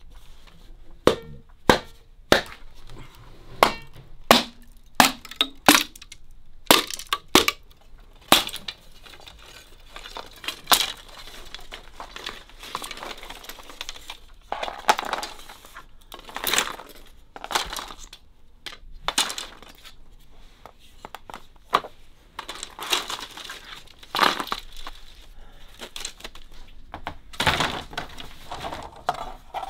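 Bamboo splitting under a spoked, wheel-shaped metal bamboo splitter that cleaves the culm into strips. It starts as a run of sharp cracks, then turns into longer crackling and splintering tears about ten seconds in.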